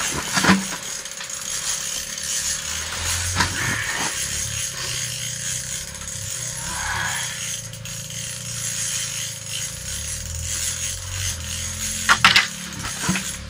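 Spinning reel being cranked to reel in a hooked walleye, a steady mechanical whirring under load. A few sharp knocks from the rod and reel handling, the loudest near the end, over a constant hiss and hum.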